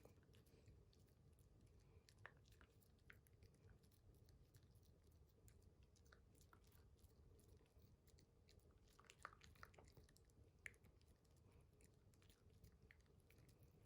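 Shiba Inu puppy faintly chewing banana: soft, irregular mouth clicks and smacks, with a few slightly louder ones about two seconds in and again near nine to eleven seconds.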